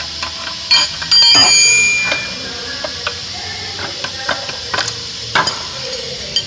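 Steel wrenches clicking and knocking against a steering rack's tie rod end and its lock nut as the end is adjusted. About a second in comes a loud ringing clang, with another sharp knock near the end.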